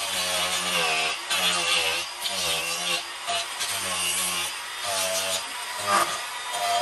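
Electric angle grinder cutting texture into Christmas-tree wood. Its motor whine sags in pitch each time the disc bites in and picks up again as it eases off, about once a second, over a rasping of wood.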